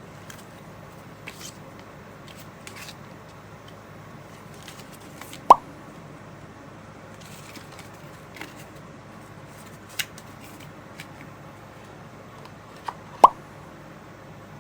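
Two short plop sounds that each rise quickly in pitch, about eight seconds apart, with a few faint clicks between them over a low steady hum.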